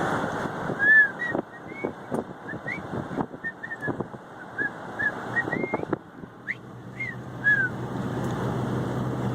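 A vehicle's running noise with wind on the microphone, thinning out for a while as a scattered series of short whistled chirps and a few sharp clicks are heard; a low steady engine hum comes back from about two-thirds of the way in.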